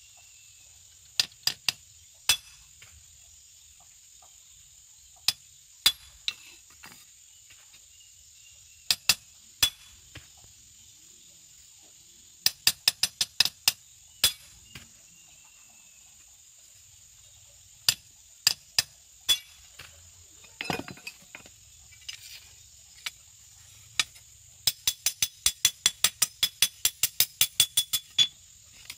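Blacksmith's hammer striking a golok blade on the anvil: scattered single sharp metallic knocks, then near the end a fast, even run of blows, about four a second, as the blade is forged.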